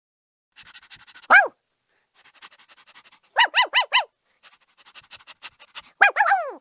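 A dog panting in quick, soft breaths between barks: a single bark, then four rapid high barks in a row, then another quick run of barks near the end.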